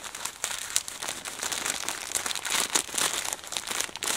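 Packaging around a set of earbuds crinkling and rustling as hands unwrap it, with irregular crackles throughout.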